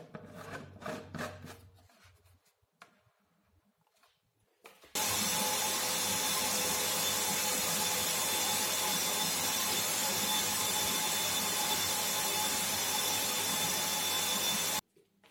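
A few handling knocks, then an electric power tool's motor running steadily for about ten seconds. It switches on about five seconds in and cuts off abruptly near the end.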